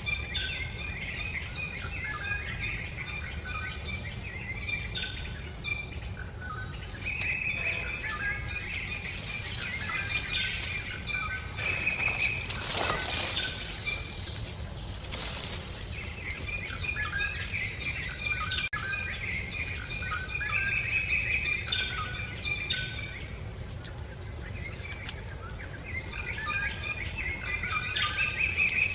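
Birds chirping and calling in short, repeated notes, over a steady low background rumble, with two brief rushes of noise about halfway through.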